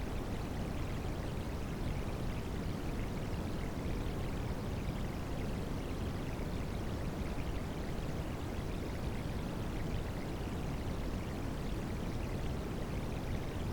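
Steady rain sound blended with white noise: an even, unbroken rushing hiss with most of its weight in the low end.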